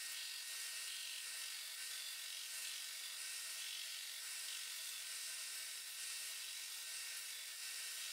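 Warco 4x36-inch belt sander running while the corner of a wooden panel is held against the moving belt and shaped to a radius: a steady high hiss of sanding with a faint motor hum.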